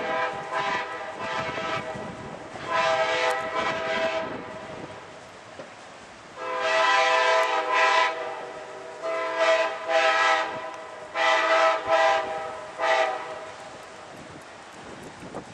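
Air horn of an approaching Amtrak diesel locomotive, sounding a run of loud chord blasts, each a second or two long, with short gaps between them.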